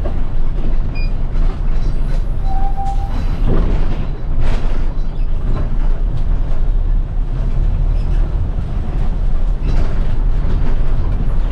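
City bus running, heard from aboard: a heavy, steady low engine and road rumble with a few knocks and rattles from the body. There is a short single-pitched beep about two and a half seconds in.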